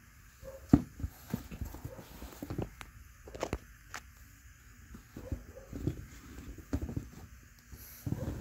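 Carhartt leather safety boots with rubber lug soles being handled and turned over on a tile floor: irregular knocks, scuffs and rubbing, with the sharpest knock about a second in.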